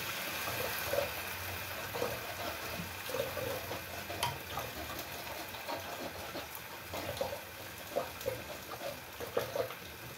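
Kitchen cooking noise: a steady watery hiss with scattered light clinks of utensils.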